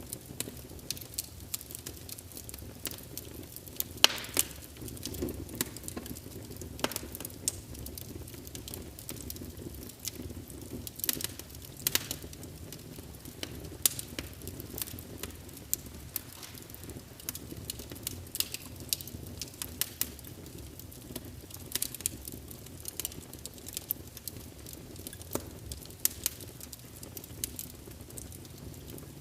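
Wood fire crackling: frequent sharp, irregular pops and snaps over a low steady rumble of the flames.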